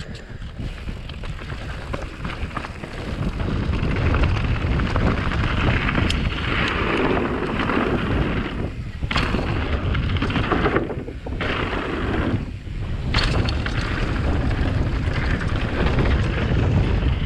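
YT Capra Core 1 MX full-suspension mountain bike descending fast: wind rumbling over the camera microphone, tyres rolling over rocky dirt and wooden ramp boards, and the bike rattling. A few sharp knocks from hits and landings come midway.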